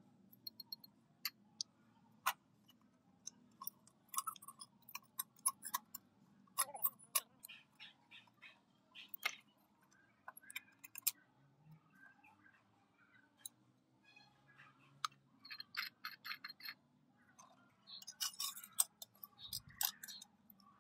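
Irregular light metallic clicks and taps, some with a brief ringing, with a quick run of clicks about three-quarters of the way through: parts of a rusty old oil lantern being handled and worked on.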